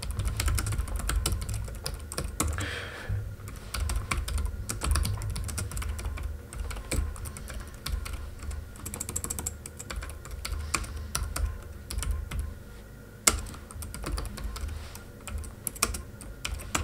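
Computer keyboard being typed on: fast, irregular runs of keystroke clicks with brief pauses between words.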